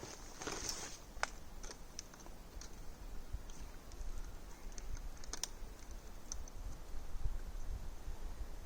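A crunching step in snow about half a second in, then scattered small sharp clicks and ticks over a low rumble that grows louder toward the end.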